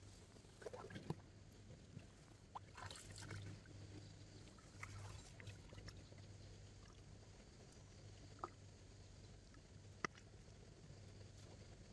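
Faint, irregular splashing and dripping of water with a few light knocks and clicks, the sharpest about ten seconds in, over a low steady hum.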